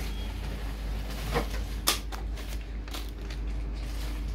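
Handling noises while gear oil is drawn into a syringe: a few sharp clicks, the loudest about two seconds in, over a steady low hum.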